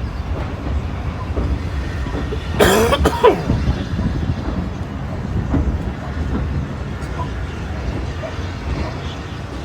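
Train running with a steady low rumble, with a short, loud rushing burst about two and a half seconds in.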